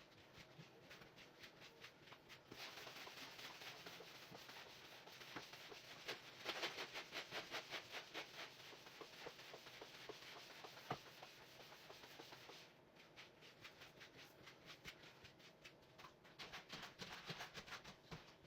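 Faint, quick rhythmic scrubbing or brushing strokes, about three a second, as a surface is cleaned by hand. The strokes pause for a few seconds before the end and then pick up again.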